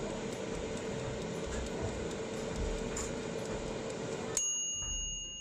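Tefal Easy Fry Compact air fryer running: a steady fan whirr with a held hum. About four and a half seconds in, the fan cuts off and the mechanical timer's bell dings and rings on, signalling that the cooking time is up.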